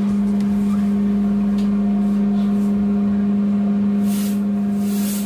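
An engine running with a steady, even hum at one low pitch. Two brief hisses come about four and five seconds in.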